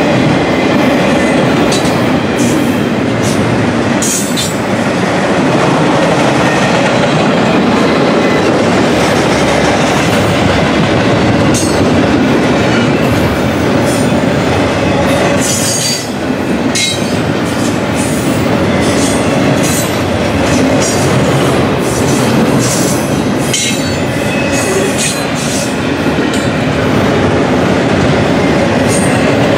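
Double-stack container well cars of a freight train rolling past: a steady rumble and rattle of steel wheels on rail, with repeated clicks as the wheels cross rail joints.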